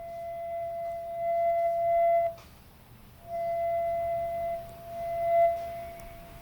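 A steady, whistle-like tone from a Sony WF-1000XM3 right earbud. It sounds for about two seconds, cuts off, then comes back twice more for a second or so each time. This is the abnormal noise of the faulty right earbud.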